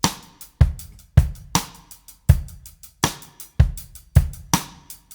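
Backing music: a drum kit playing alone, a steady beat of kick and snare hits with hi-hat, about two hits a second.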